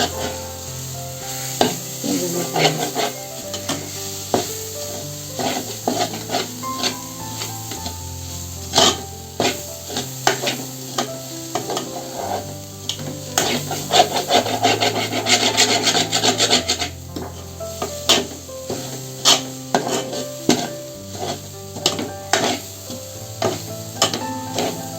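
A ladle stirring and scraping a thick mixture around a pan in repeated strokes, busiest about two-thirds of the way through. Background instrumental music with a slowly stepping bass runs underneath.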